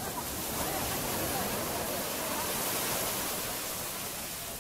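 Shallow surf washing up the sand and around the haulers' legs, a steady rush of water that swells through the middle and eases off near the end.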